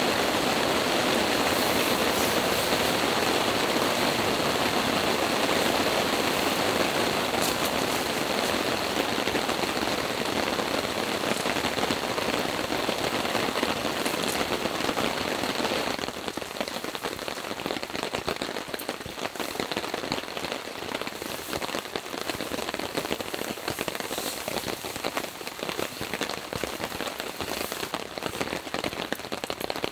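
Sudden heavy downpour falling on a camping tarp overhead: a dense, steady hiss of rain with scattered sharp drop hits. About halfway through it drops to a lighter level.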